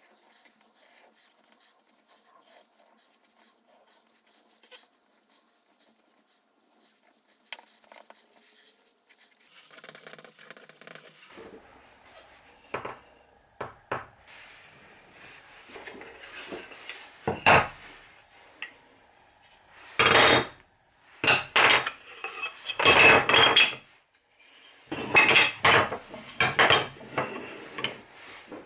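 Pieces of scrap wood, boards and wooden dowels, being set down and shifted on a wooden workbench: irregular wooden knocks and clatters that start about halfway through and come thick and loud near the end, after a faint stretch of small ticks.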